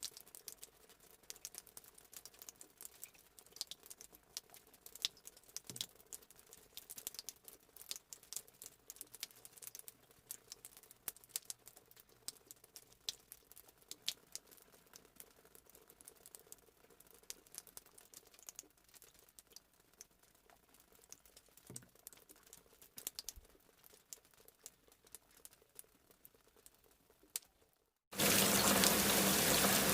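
Rain: scattered drops pattering, as separate sharp ticks several a second. Just before the end it cuts abruptly to a steady, much louder downpour.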